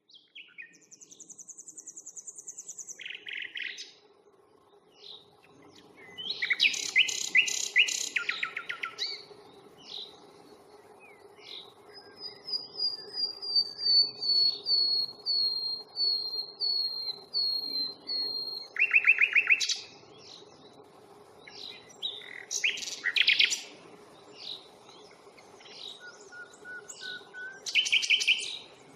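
Common nightingale singing: varied phrases separated by short pauses, among them rapid repeated high notes, loud chattering rattles, and a slow run of about a dozen slurred whistles that swell in volume.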